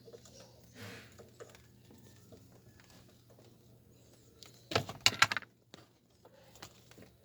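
Small clicks and rattles of hand work on plastic and metal parts while a car's ignition switch is being removed, with a short burst of louder clatter about five seconds in.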